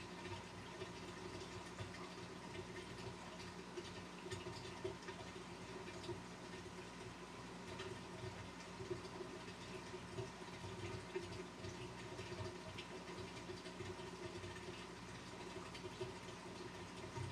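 Fish tank water circulation from the aquarium pump: steady trickling and splashing of water with small drips and bubbles, over a steady electric hum from the pump.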